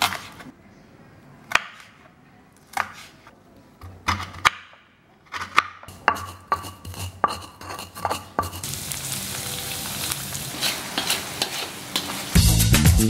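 Kitchen knife slicing shallots on a wooden chopping board, a few sharp knocks. Then a pestle working spices and coriander seeds in a stone mortar. From about two-thirds in, a spice paste sizzling in hot oil in a wok while a metal spatula stirs and scrapes it, cut off just before the end by upbeat music with a steady beat.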